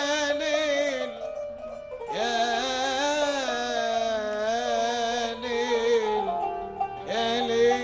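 A male singer holds long, wavering melismatic notes in classical Arabic style, accompanied by a plucked qanun.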